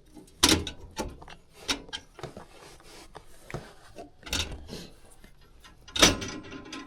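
Sheet-metal gas furnace burners knocking and rattling as they are handled and slid into place over their gas orifices. Several sharp knocks, the loudest about half a second in and about six seconds in, among smaller clicks and scrapes.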